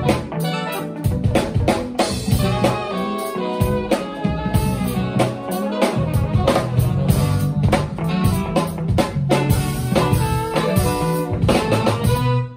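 A live funk-soul band plays with a horn section of two saxophones and a trumpet over drums and bass. The music stops suddenly right at the end, on the song's final hit.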